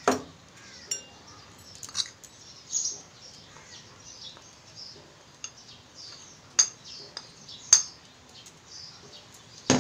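Steel spoon scooping gram flour from a plate into a bowl of soaked soya chunks, clinking sharply against the plate and bowl edge several times. The two loudest clinks come just past the middle.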